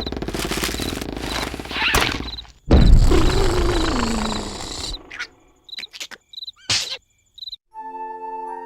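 Cartoon soundtrack effects: crickets chirping in an even, repeating pattern over a loud rushing noise. About three seconds in comes a sudden loud burst with a tone sliding downward, fading away. Then a few chirps and clicks in near quiet, and a held musical chord begins near the end.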